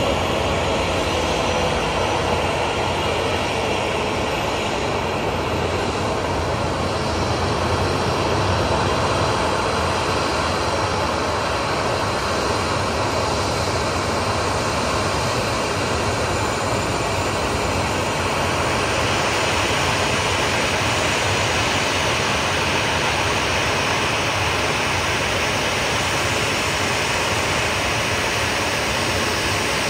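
Steady jet aircraft turbine noise at an airport ramp, an even rushing sound with a faint high whine coming in about two-thirds of the way through.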